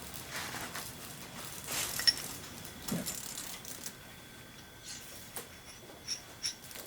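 Small metal machine parts and tools being handled on a workbench, with a sharp click about two seconds in and a few light ticks near the end.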